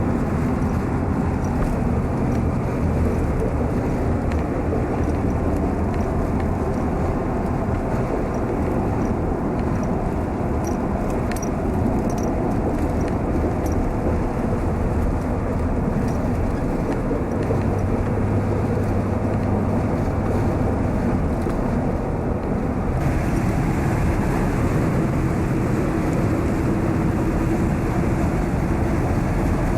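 Car travelling on the road: a steady hum of engine and tyre noise, turning a little brighter about three-quarters of the way through.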